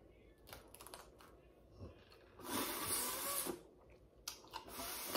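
Boiled crawfish being cracked and peeled by hand close to the microphone: a few sharp shell clicks, then a longer hissy stretch of wet shell and meat noise about two and a half seconds in, and more cracks and short noisy bursts near the end.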